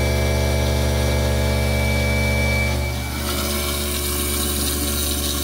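Newly installed garbage disposal's motor running with a steady hum. About three seconds in, tap water pouring into the sink drain and down through the running unit joins it with a rushing hiss.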